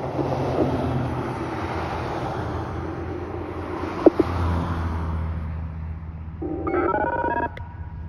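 Whelen WPS-4004 electronic outdoor warning siren's test sound dying away in a long, echoing wash that fades over several seconds. A low steady hum joins about halfway. Near the end comes a brief burst of electronic tones stepping in pitch.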